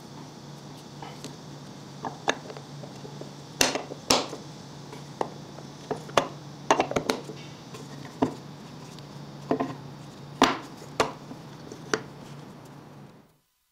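Irregular sharp knocks and clacks of hard wooden pieces striking each other, about a dozen over the stretch, with a steady low hum underneath.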